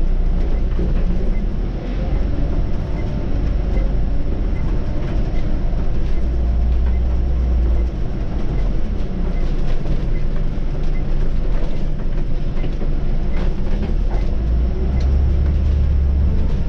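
Scania city bus under way: a steady low engine and road rumble with occasional knocks and rattles.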